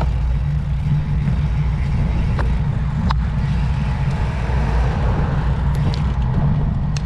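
Wind buffeting the microphone of a moving rider: a steady low rumble with a few faint clicks.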